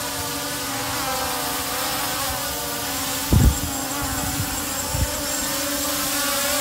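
Multilaser Falcon 4K GPS quadcopter's propellers buzzing steadily in flight, a fairly loud hum, with two short low thumps, the louder about three and a half seconds in and a smaller one near five seconds.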